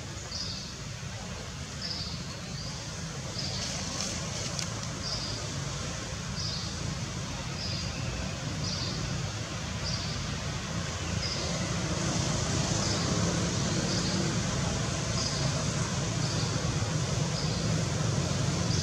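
A low steady rumble like distant road traffic, growing a little louder about twelve seconds in, under a short high chirp that repeats evenly about every three-quarters of a second.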